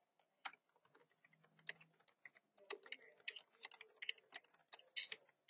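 Faint keystrokes on a laptop keyboard as an address is typed in: a few scattered taps at first, then a quicker run of keystrokes in the second half.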